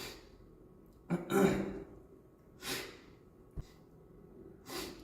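A young man's breathing noises close to the microphone: a voiced sigh about a second in, then short breathy puffs and a small click.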